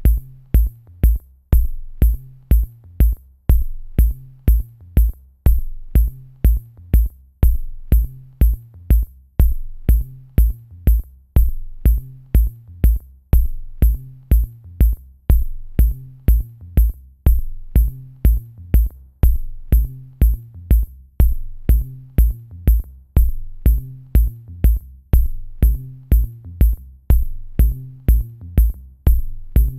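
Electronic background music with a steady drum-machine beat, about two hits a second, over a low bass line.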